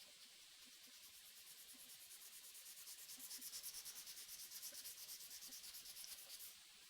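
Faint hand sanding or rubbing, quick even back-and-forth scratchy strokes that build up, hold steady and stop shortly before the end.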